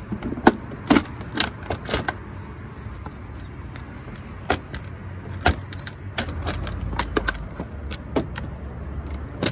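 Ribbed rubber intake air duct being worked off the throttle body and pushed aside by hand: a quick run of sharp clicks and knocks, then a few scattered knocks, with a low rumble of handling noise in the second half.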